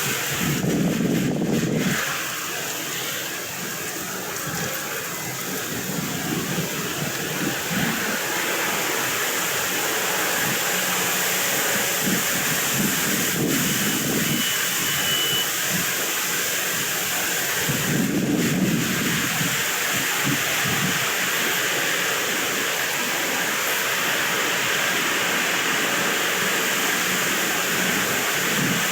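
Wind blowing across the microphone: a steady rushing hiss with low rumbling gusts every few seconds.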